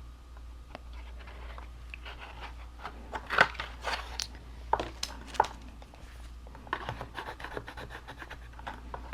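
Cardstock pieces being handled and pressed together: irregular scratching and tapping, then a quicker run of scratchy strokes in the last few seconds.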